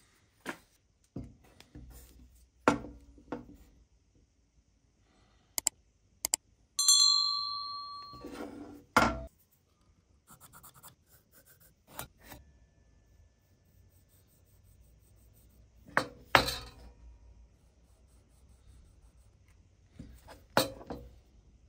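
Hand-tool handling on a metal table-saw top: scattered knocks and clicks as a wooden block and small tools are picked up and set down, faint scratching as the wood is marked out. About seven seconds in, a metal tool rings out once and fades over a second or so.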